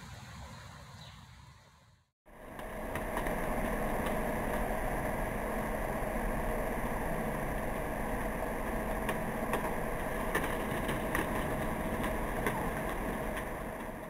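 Steady outdoor background noise with a low hum and many scattered light ticks, starting abruptly about two seconds in after a brief dropout from a quieter ambience.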